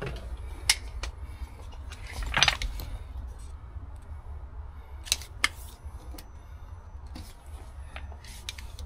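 Steel tape measure being handled against siding: a few sharp metallic clicks and one short rasp of the blade about two and a half seconds in, over a low steady rumble.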